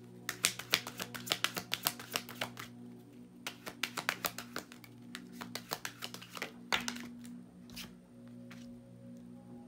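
A deck of cards being shuffled by hand: three runs of quick flicking snaps, over soft steady background music.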